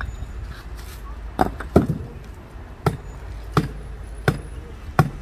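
Concrete paving stones being laid by hand, knocking sharply as they are set in against one another. There are six knocks: two close together about a second and a half in, then one roughly every three quarters of a second.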